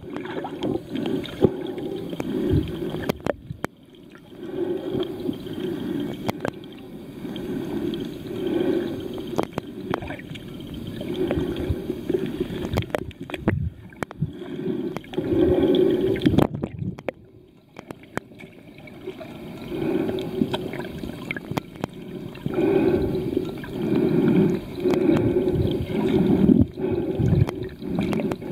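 Muffled underwater water noise: sloshing and bubbling that swells and fades every few seconds, with scattered faint clicks.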